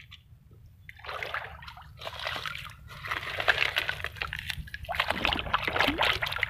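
Shallow stream water sloshing and splashing as a hand swishes a plastic toy truck through it to rinse off the mud. It starts about a second in and comes in uneven surges, with a short lull a little past the middle.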